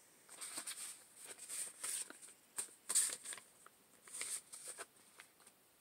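Paper sticker sheets being handled: a series of short, light rustles and crinkles, dying away near the end.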